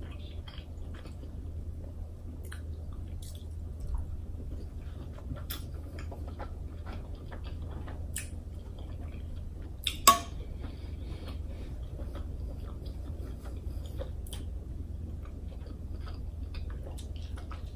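Close-miked chewing of king crab meat, with soft wet mouth clicks and smacks. One sharp, louder click stands out about ten seconds in.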